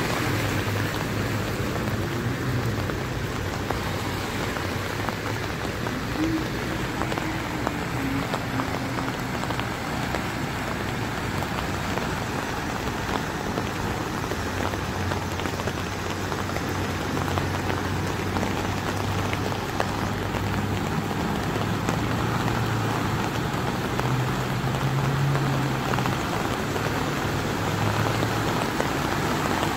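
Steady rush of rain and splashing floodwater, under the low hum of car and truck engines wading slowly through deep water on the flooded road.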